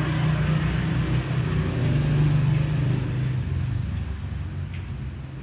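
Low engine drone of a passing motor vehicle, swelling about two seconds in and fading toward the end.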